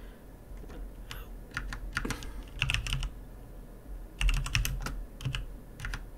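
Typing on a computer keyboard: a few scattered keystrokes, then two quick flurries of keys with a short pause between them.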